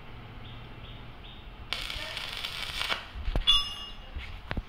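Stick (arc) welding electrode crackling on a steel plate for about a second, starting a couple of seconds in, then stopping. A few sharp metallic clicks and a brief ring follow near the end as the rod and holder are lifted and touched against the metal.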